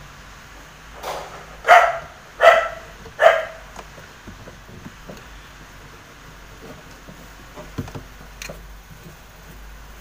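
A dog barking four times in the first few seconds, about one bark every three-quarters of a second. Afterwards only faint clicks as the rubber drive belt is worked onto the washing machine's motor and drum pulleys.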